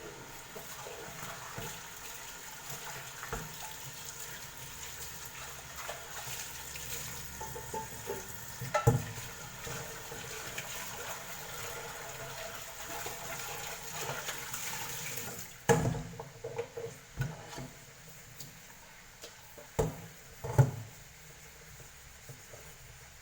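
Water running steadily from a tap into a sink, shut off suddenly about two-thirds of the way through. A knock comes about nine seconds in, and a few sharp knocks and clatters follow after the water stops.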